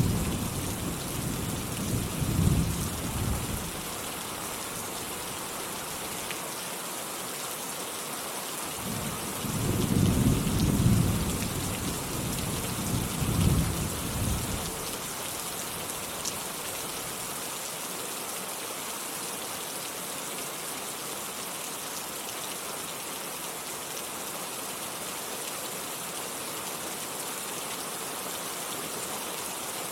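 Steady rain falling, with thunder rumbling low at the start and again for several seconds near the middle, then rain alone.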